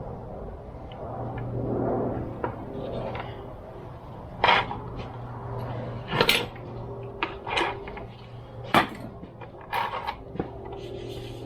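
Chainsaw parts being handled during reassembly: a series of irregular sharp clicks and knocks of hard plastic and metal pieces being picked up, set down and fitted, over a low steady hum.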